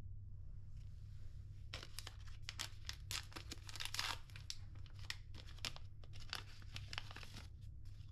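Brown paper sachet being torn open and crinkled by hand: a run of crackling rips and rustles that starts about two seconds in and stops shortly before the end. A low steady hum runs underneath.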